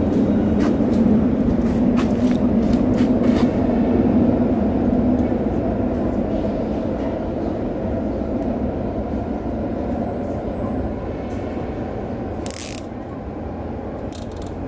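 A steady low mechanical rumble, strongest in the first few seconds and slowly fading, with a few light clicks early on and a short sharp rattle near the end, from a wire refrigerator shelf and plastic zip ties being handled against a bicycle carrier.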